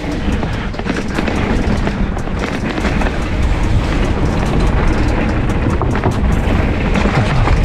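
Mountain bike tyres rolling and clattering over wooden boardwalk slats, with the bike rattling and wind rumbling on the action camera's microphone.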